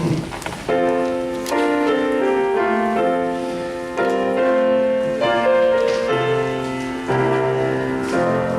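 Church keyboard accompaniment playing the introduction to a congregational hymn: a slow run of full, held chords, starting about a second in.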